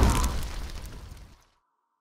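Fiery explosion sound effect for an animated logo intro, a deep rumbling burst that dies away steadily over about a second and a half.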